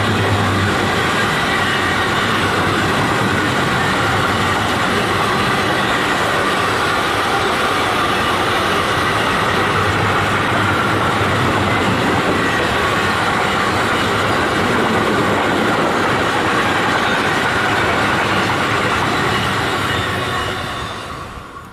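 Long freight train of red double-deck car-carrier wagons rolling past close by: steady loud wheel-on-rail rumble and clatter with a few steady high tones over it, fading away near the end as the last wagon goes by.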